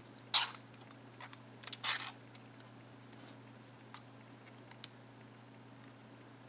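Small metal clinks and ticks of lock pins being handled out of a gutted pin-tumbler lock: two brief louder clinks, one just after the start and one about two seconds in, with faint ticks between, over a steady low electrical hum.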